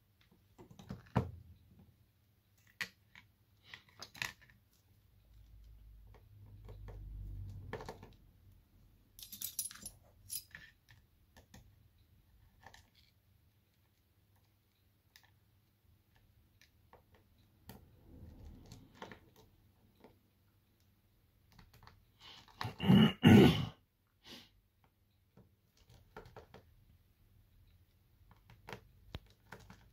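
Scattered clicks and light metallic clatter of small repair tools and phone parts being handled on a workbench, with one louder burst of clattering about three-quarters of the way through.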